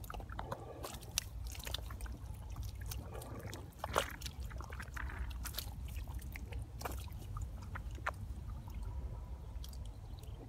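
Trapped fish thrashing in a shallow hole of muddy water: scattered wet splashes, slaps and squelches over a steady low rumble, the loudest splash about four seconds in.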